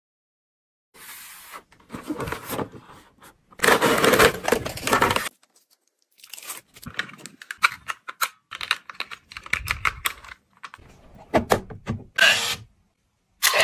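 Protective plastic film peeled and crinkled off a new alarm clock's screen in irregular tearing bursts, with sharp clicks as the clock's plastic buttons are pressed.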